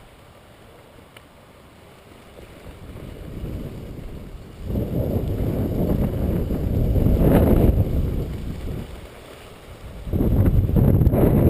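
Gusting wind buffeting a GoPro microphone: a low noise that is faint at first, swells sharply about five seconds in, eases near nine seconds and comes back strongly near ten.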